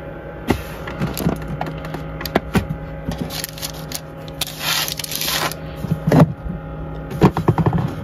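Plastic candy wrappers of Nerds Rope packs crinkling and tapping against a wooden shelf as they are set down by hand, with a burst of rustling about halfway and a quick run of taps near the end.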